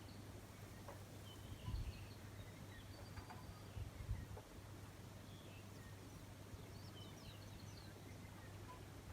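Faint, scattered bird chirps over a steady low hum, with two brief low thumps about two and four seconds in.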